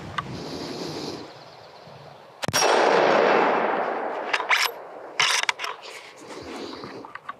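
A single shot from a Howa 1500 Mini Action bolt-action rifle in 6.5 Grendel about two and a half seconds in, its report echoing and dying away over about a second and a half. A few sharp metallic clicks and clanks follow a second or two later.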